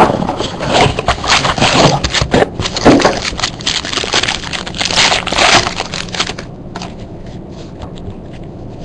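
Trading-card packaging being opened and handled: a dense run of rustling, tearing and scraping for about six seconds, then quieter handling noise.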